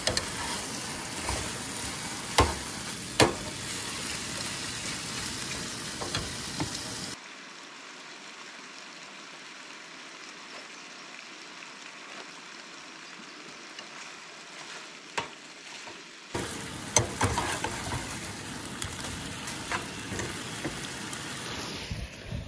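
Diced chicken sizzling in a skillet on a camp stove, with sharp clicks and scrapes of a spatula stirring it against the pan. The sizzle drops to a quieter, thinner hiss without clicks for about nine seconds in the middle, then returns with more stirring.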